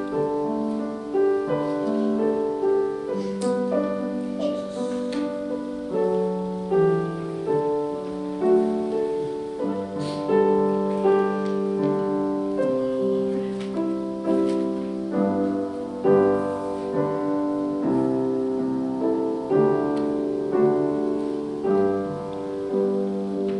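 Solo piano playing a slow, gentle piece: sustained chords under a melody, the notes swelling and fading, with the sound easing off near the end.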